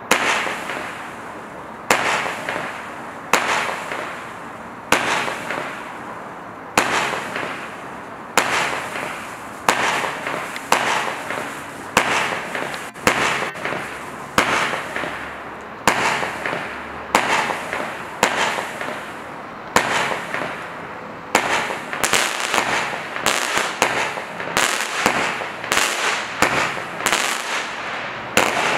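Black Cat 'Star Dust' firework firing shot after shot, each a sharp report followed by a fading noisy tail. The shots come about every second and a half at first and quicken to about two a second in the last third.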